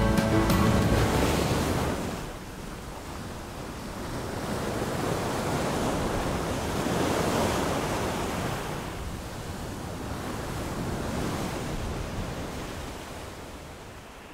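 Waves washing on a shore, rising and falling in slow surges and fading out near the end.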